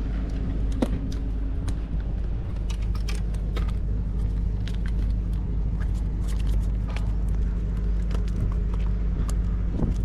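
A steady low engine hum, with scattered light clicks and taps over it.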